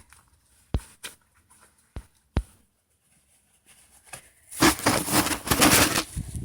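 Handling noise as a glove is pulled on: a few sharp clicks, then loud rustling of clothing for about a second and a half near the end.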